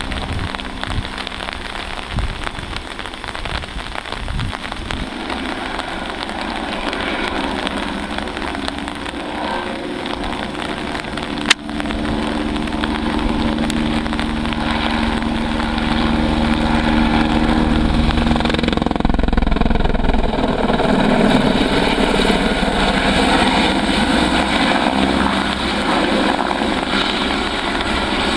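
An Aérospatiale/Eurocopter AS 350 Ecureuil single-engine turbine helicopter flying low and steadily, its engine and rotor running throughout. A sharp click comes just before halfway, and the helicopter grows louder from about two-thirds of the way in as it comes closer.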